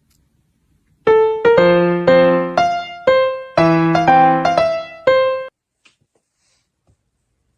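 Piano keys struck in about eight irregular clusters of several notes at once, each ringing and fading before the next, over about four seconds, then stopping.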